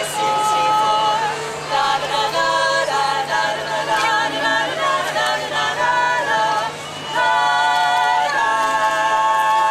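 Women's a cappella quartet singing in close harmony, with no instruments. Near the end the voices settle into a long held chord.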